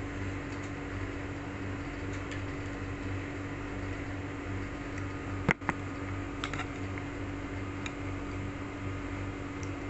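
Steady motor hum in the room with a low pulsing drone, broken about halfway through by two sharp knocks in quick succession and a few fainter ticks after.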